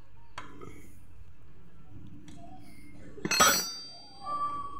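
A couple of light clicks, then one sharp metallic clink with a brief ring a little over three seconds in: metal knocking on metal as a hand works at the oil-check bolt on a scooter engine's cylinder head.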